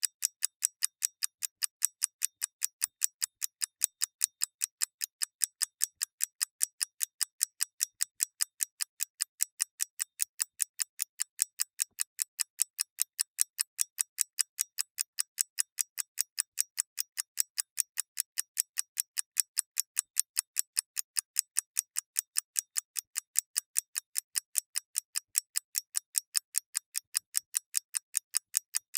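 Clockwork mechanism ticking: a steady, even train of sharp, thin, high ticks, several a second, with no change in pace.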